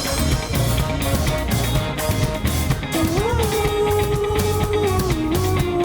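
Funk band playing live: a steady drum and bass beat with guitar. About halfway through, a sustained note slides up and is held.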